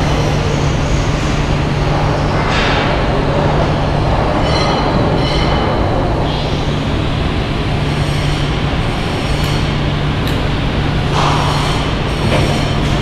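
Loud, steady machinery noise in a metalworking shop, with a constant low hum and a few brief high metallic squeals.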